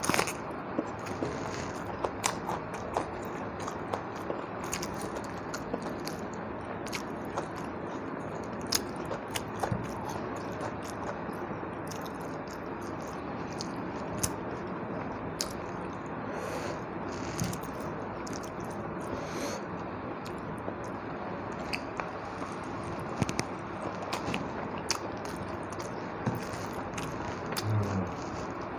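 A person eating with close-up mouth sounds: chewing and biting with scattered crisp clicks and crunches, like rice and fish curry eaten by hand with bites of raw chilli and onion.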